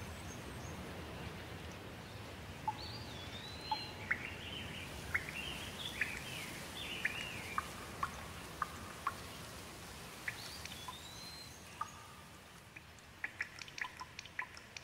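Steady rain, with a bird calling in short whistled notes that glide up and down for several seconds, then again briefly later. Near the end, single drops tap in quick, uneven succession.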